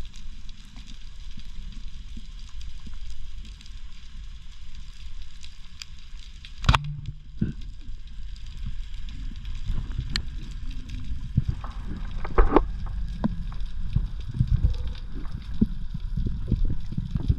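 Underwater sound on a camera housing: a low rumble of moving water with faint scattered crackling, a single sharp snap about seven seconds in, and a few knocks in the second half.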